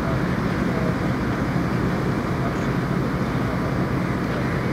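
Boat engine running steadily, a constant low drone heard from aboard, with the hiss of water and wind.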